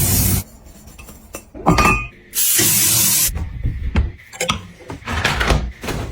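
Objects handled with scattered knocks and clinks, and a hiss lasting about a second near the middle.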